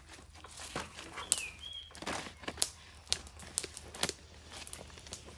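Handling sounds of a boiled cow hide being spread out on banana leaves: irregular crinkling of the leaves with soft taps and slaps of the wet skin. A bird gives one short chirp a little over a second in.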